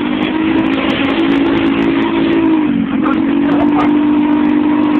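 Piaggio Liberty 50 scooter engine running under way through a blown exhaust, a loud steady engine note. About three seconds in, the pitch dips briefly, then climbs back.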